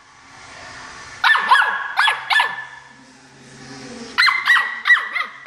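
A Jack Russell terrier puppy yapping in play at a power buffer: short high-pitched barks in two runs of about four each, a couple of seconds apart.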